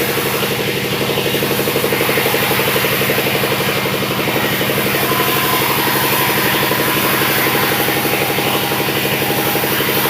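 Sawmill engine running steadily at an even speed, with a fast, regular beat.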